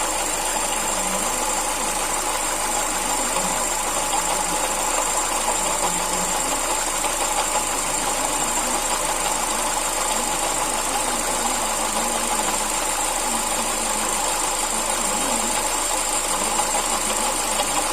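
Ford Sigma four-cylinder engine idling steadily, heard close at the accessory belts and water pump. The water pump has play in its shaft and is the source of the noise being checked, a wear typical of this engine line.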